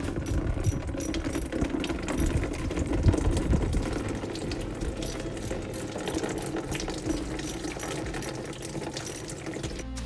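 Engine coolant draining in a steady stream into a bucket from the truck's cooling system.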